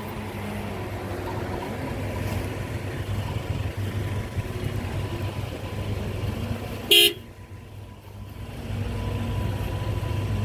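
A car horn gives one short toot about seven seconds in, over a steady low rumble of car engines.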